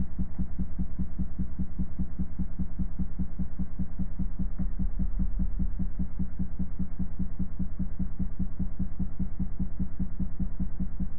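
Loudspeaker playing a steady low test tone that throbs rapidly, several pulses a second, as it vibrates a water droplet at one of its resonant frequencies.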